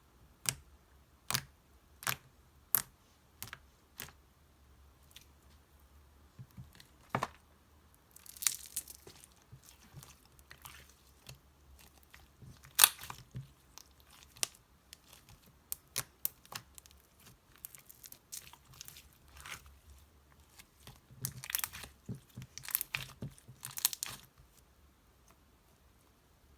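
White slime being handled and mixed with soft clay: sharp popping clicks about one every 0.7 s at first, then irregular pops and longer crackly stretching sounds, busiest near the end.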